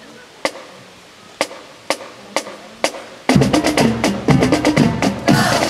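Count-off clicks, five sharp ones, the first two about a second apart and then about two a second, after which a full marching band comes in loudly about three seconds in with brass and drums.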